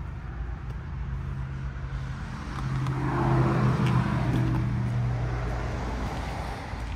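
Motor vehicle noise: a steady low engine hum, with a vehicle passing that swells about three seconds in and fades away over the next few seconds.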